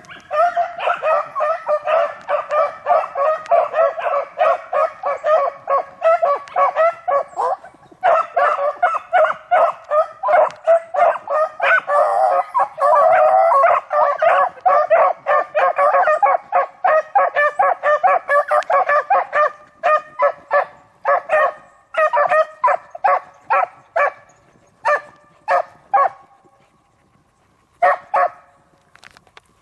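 A pack of beagles baying as they trail a rabbit's scent: a dense stream of overlapping rapid calls that thins out after about twenty seconds to scattered single barks, with a short lull near the end.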